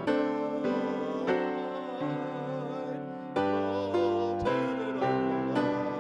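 Piano music for a church hymn, with new chords struck about every second under a sustained, wavering melody line.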